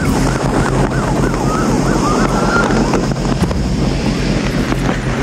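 Police motorcycle running at high speed, with heavy wind rushing over the helmet-camera microphone. A siren sweeps rapidly up and down about twice a second and stops about halfway through.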